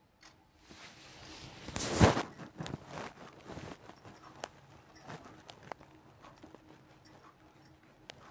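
Hands mixing and kneading wheat-flour dough in a steel bowl: soft, irregular thuds and pats with a few light clicks, the loudest thud about two seconds in. The flour is still crumbly, being worked into a chapati dough.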